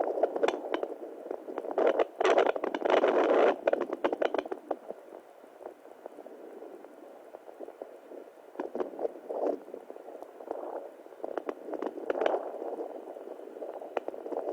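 Handheld fetal Doppler monitor's speaker output: irregular whooshing surges mixed with scratchy crackles, loudest about two to four seconds in, fainter in the middle and building again near the end.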